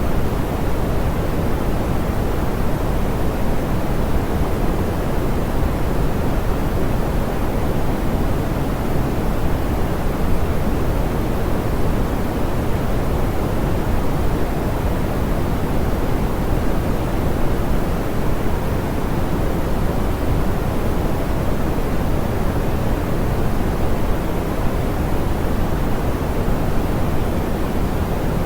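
Steady, smoothed pink noise: an even, unchanging hiss weighted toward the low end, with no tones or events.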